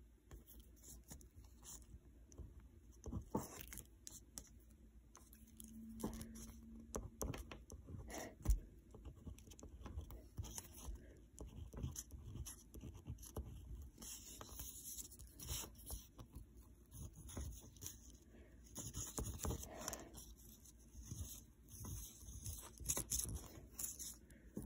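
Ballpoint pen writing on a sheet of paper over a hard desk: irregular scratching strokes of the nib, with an occasional sharp tap.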